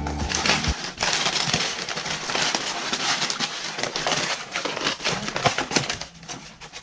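Crumpled brown kraft packing paper crinkling and rustling as it is pulled out of a cardboard box, followed by sheets of paper being handled, with many short crackles throughout. Background music ends within the first second.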